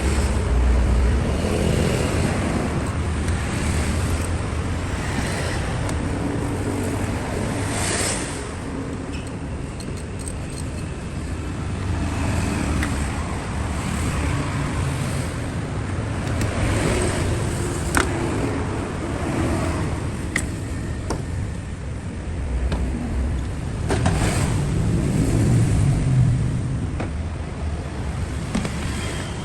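A car running, heard as a fairly steady rushing noise with a few sharp clicks.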